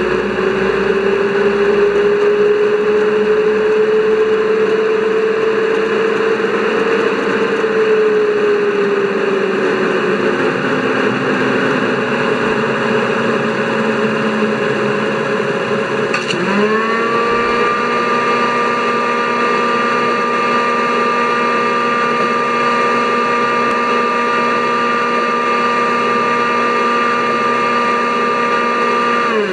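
ESU LokSound XL V4.1 sound decoder in an LGB Ge 6/6 I Crocodile model playing its transformer cooling-fan sound on the strong setting. It is a steady rushing fan noise with a hum that rises slowly in pitch and then falls away between about 7 and 10 seconds in. About 16 seconds in, a second sound from the decoder starts: several steady tones that sweep up briefly, hold, and then cut off abruptly at the end.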